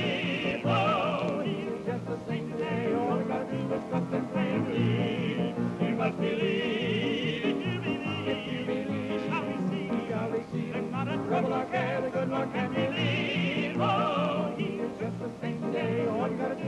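Gospel singers continue a song, the held notes sung with a wide vibrato over a steady, pulsing low accompaniment.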